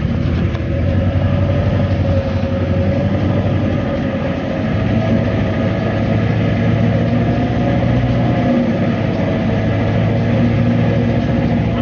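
A vehicle engine running steadily, with a low hum and a whine that steps up slightly in pitch about halfway through.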